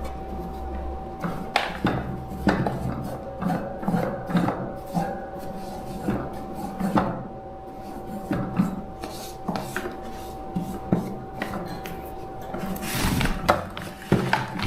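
Irregular clicks, light clinks and scraping of hand tools and small hard parts being handled and rubbed, over a steady faint high hum.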